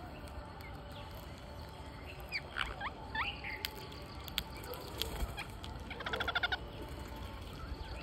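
Ring-necked parakeets calling: a few short, swooping squawks about two to three seconds in, then a fast chattering trill around six seconds in, with a few sharp clicks in between over a steady background hiss.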